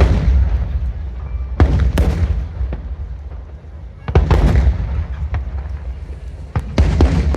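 Aerial fireworks shells bursting in loud bangs, in clusters at the start, near 2 seconds, about 4 seconds in and near the end, each followed by a rumbling echo.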